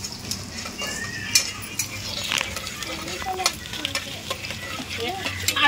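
Chicken curry frying in a hot pan while a spoon stirs it: a steady sizzle with scattered clicks and scrapes of the spoon against the pan.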